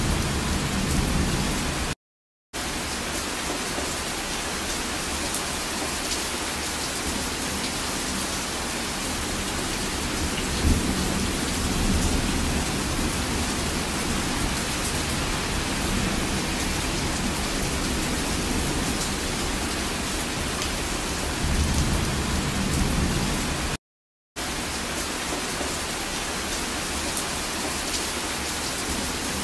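Heavy rain falling steadily, with low rumbles of thunder about a third of the way in and again past two-thirds. The sound cuts out completely for a moment twice.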